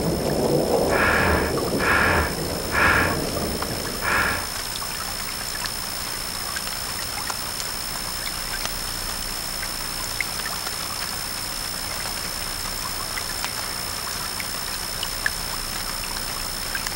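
Old film soundtrack: a low rumble with four short high notes about a second apart, which stop about four seconds in, leaving a steady hiss with faint crackles and a thin high whine.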